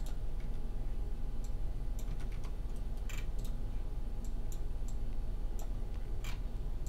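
Scattered clicks of computer keyboard keys and a mouse, a few taps at a time, over a steady low hum.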